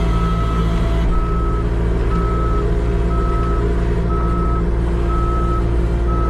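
New Holland 328 skid steer's backup alarm beeping about once a second as the machine reverses, over the steady running of its engine.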